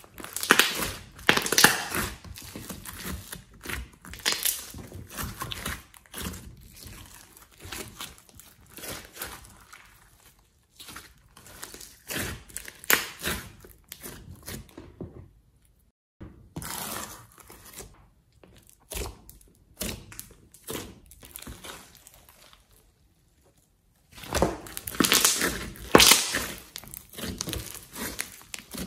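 Hands squeezing, kneading and stretching a large lump of glossy slime, giving irregular wet squelches and crackles, with two short pauses in the handling; the loudest squeezes come near the start and again late on.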